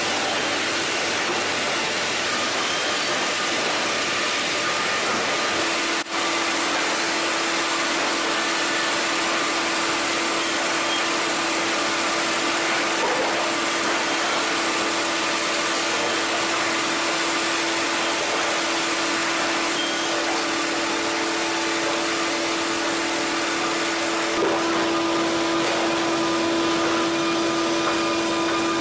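Automated sawmill lumber-handling line running: chain conveyors and motors make a steady, dense machine noise. A constant hum comes in about six seconds in.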